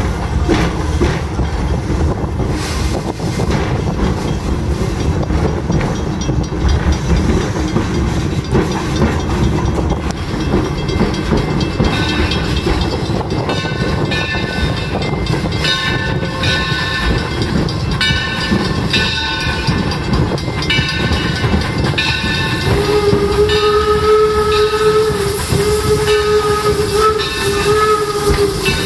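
Steam train running, heard from an open passenger coach: a steady rumble of wheels on rail. From about twelve seconds in, a bell rings about once a second. In the last six seconds the steam locomotive Torch Lake sounds its whistle in several long blasts with short breaks, the warning for a road crossing.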